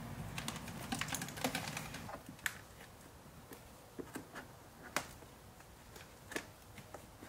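Light clicks and ticks of a plastic trim tool pushing a dash cam's wire into the gap between a vehicle's headliner and windshield. A quick run of clicks comes in the first two seconds, then single clicks about every second.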